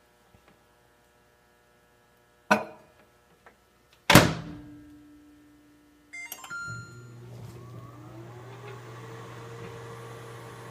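LG countertop microwave oven: a click, then the door shutting with a loud thunk, a few short keypad beeps, then the oven starting up with a steady hum and a whine that rises in pitch for a couple of seconds and then holds. The oven is running on a replacement control board.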